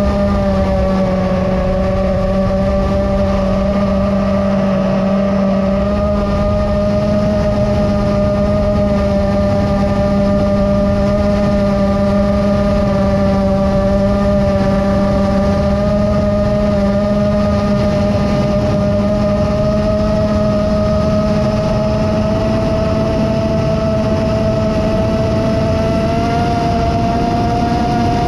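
The motors and propellers of an iFlight Chimera 7 FPV quadcopter whine steadily in flight, picked up by its onboard GoPro along with wind rush. The pitch holds nearly steady and rises slightly near the end.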